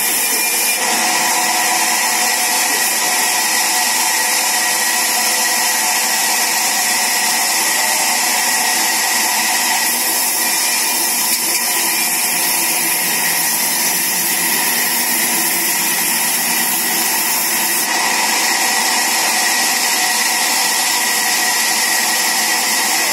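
Large sawmill band saw running steadily while it rips a log into planks: a continuous loud machine noise with a high hiss from the cut. The high part of the sound shifts slightly about a second in and again about three-quarters of the way through.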